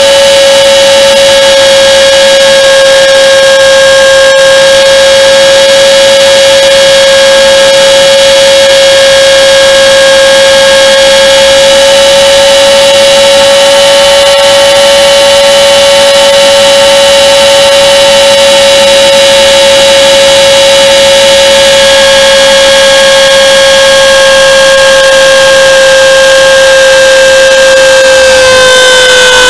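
Align T-Rex 450 electric RC helicopter in flight, heard from a camera mounted on the airframe: a loud, steady, high whine from its brushless motor and drive gears spinning the rotor. The pitch sags slightly near the end and comes back up as the load changes.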